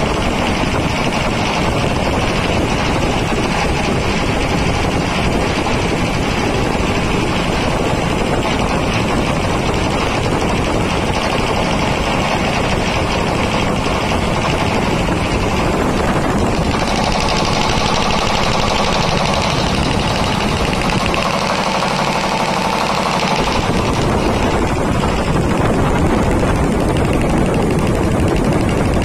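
ELGi V-type reciprocating air compressor pump running with its electric motor, a loud steady rapid clatter. A little past halfway the sound turns brighter and more hissy.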